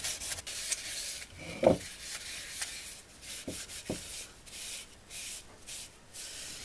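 Cloth rubbing food-safe oil into a wooden oak bowl: a hiss of friction that comes and goes in strokes of about a second.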